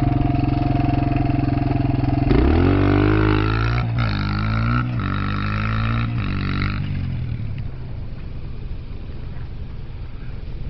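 Suzuki DR-Z125 dirt bike's small single-cylinder four-stroke engine idling close by, then revving hard and pulling away, climbing in pitch through three quick upshifts. After about seven seconds it fades to a faint drone as the bike moves off across the field.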